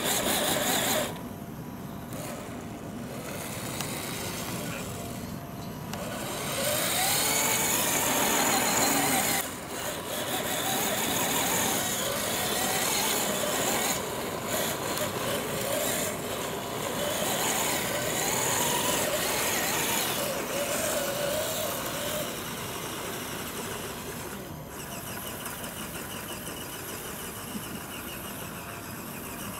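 Electric motor and gear whine of an RC scale crawler truck, rising and falling in pitch in uneven surges with the throttle.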